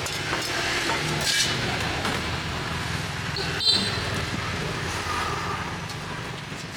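Street traffic: engines running steadily close by, with a sharp click about three and a half seconds in.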